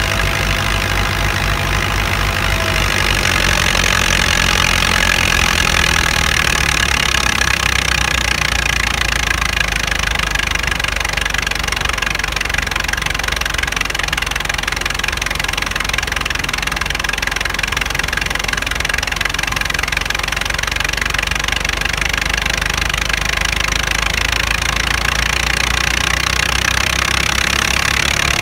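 Fiat 640 tractor's diesel engine running steadily under load, driving a grain thresher. The engine's low firing beat runs under the thresher's steady rushing noise.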